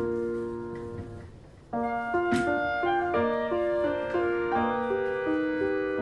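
Gentle background piano music playing a slow melody, which thins out about a second in and picks up with a new phrase shortly after; a single brief click sounds about two seconds in.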